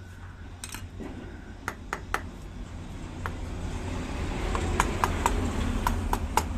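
Metal tools and engine parts clinking and tapping on a workbench: scattered sharp clicks that come more often in the second half, over a steady low hum.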